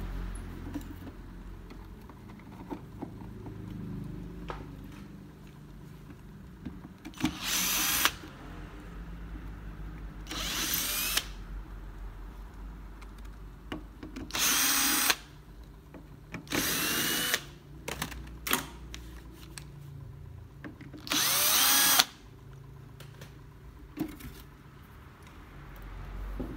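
Cordless drill-driver backing out the screws of a tape deck's wooden back panel: five short whirring runs of about a second or less, with small clicks and knocks of handling between them.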